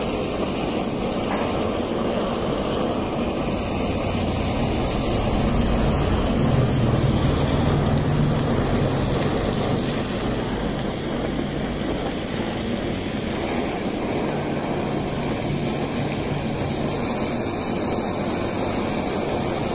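Handheld kitchen blowtorch flame hissing steadily as it browns a melted cheese and white sauce topping, a little louder for a few seconds around the middle.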